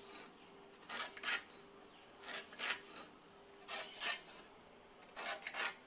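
Ballpoint pen scratching lines across a wooden door stile along a steel try square: short strokes that come in pairs, four pairs in all, roughly a second and a half apart.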